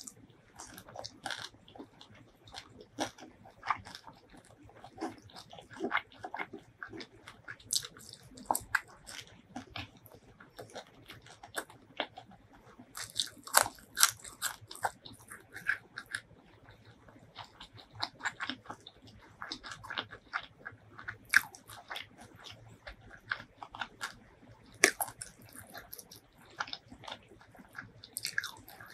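Close-miked eating of spicy fried chicken wings and white rice by hand: irregular crunching bites, crackles and wet chewing, with sharp clicks spread throughout.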